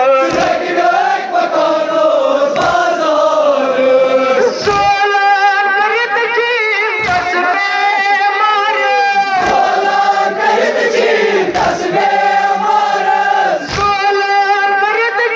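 Kashmiri noha, a Shia mourning lament, chanted by male voices together with a wavering, drawn-out melody, marked by a sharp beat about every two and a quarter seconds.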